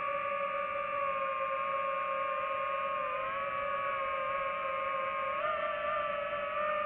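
DJI FPV drone's motors and propellers giving a steady whine in flight. The pitch wavers slightly with throttle and rises a little about five and a half seconds in.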